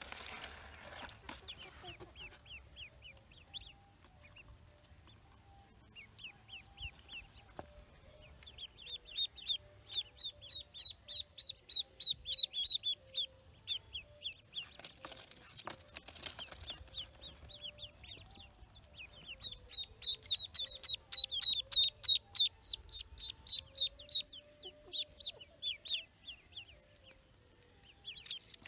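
Newly hatched ducklings peeping: rapid runs of short, high, falling peeps, the loudest stretches about a third of the way in and again later. A brief burst of rustling comes about halfway through.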